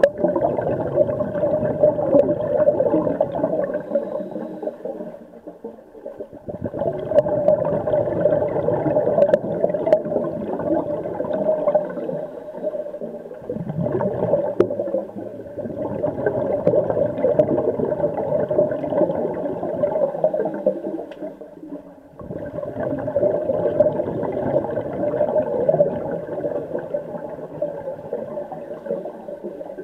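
Scuba regulator exhaust bubbles rumbling underwater. The sound comes in long stretches of several seconds with short breaks between them, about three times, following a diver's breathing.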